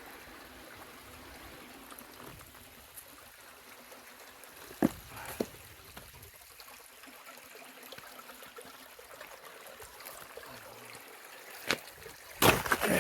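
Stream water running steadily in the background, with a few short sharp knocks, the loudest near the end.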